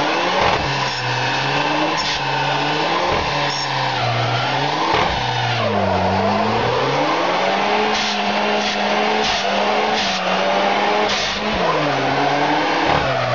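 Dodge Caliber SRT-4's turbocharged 2.4-litre four-cylinder revving hard during a front-wheel burnout. The revs rise and fall again and again, then hold high for a few seconds past the middle, while the spinning front tyres squeal.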